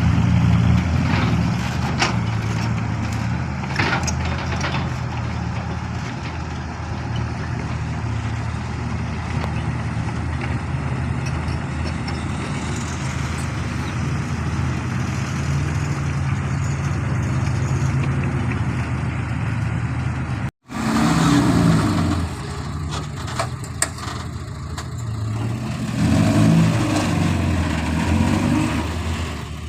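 Excavator's diesel engine running steadily, with a few sharp knocks. The sound cuts out for an instant about two-thirds of the way through, then the engine runs on, louder near the end.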